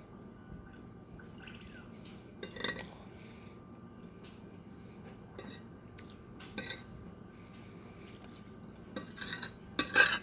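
Dishes and cutlery clinking a few times as someone eats at a table, with a louder cluster of clinks near the end.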